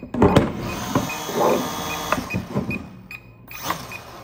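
Small electric motors in a Volantex RC warbird model plane whirring for about two seconds and then stopping, as the plane responds to the transmitter.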